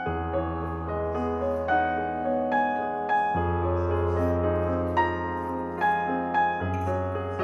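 Background piano music: a gentle melody of single notes over sustained low bass notes that change every few seconds.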